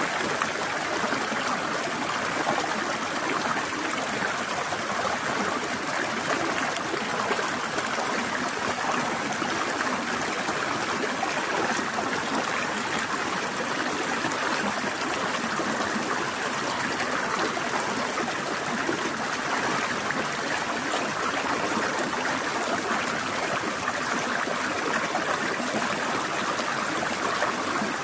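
Stream water flowing and trickling over rocks in a steady, even rush.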